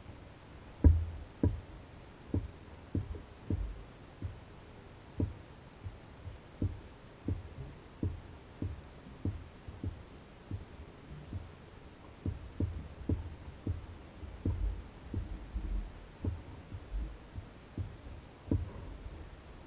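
Small waves slapping against a canoe's hull as it bobs on the lake: a run of dull, low thuds at uneven intervals, about one or two a second.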